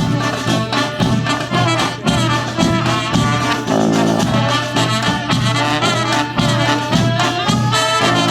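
Klezmer street band playing live, horns carrying a melody over a steady beat.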